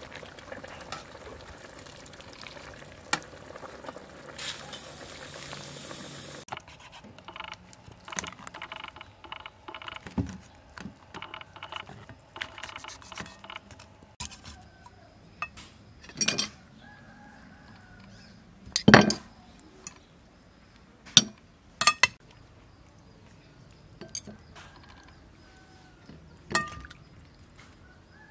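Metal spoon and table knife clinking against a glass bowl while braised duck is stirred and cut apart, in sharp separate clinks at irregular intervals. A short hiss comes about five seconds in.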